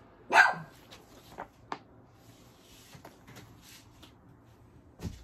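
Pet dog barking: one loud bark about half a second in, then a few much fainter short sounds.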